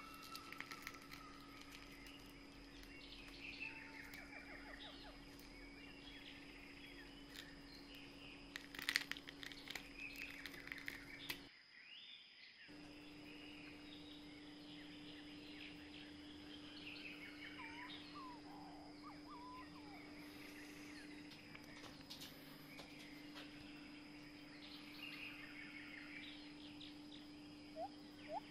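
Faint outdoor nature ambience: birds chirping on and off over two steady tones, one low and one high. The sound cuts out abruptly for about a second midway.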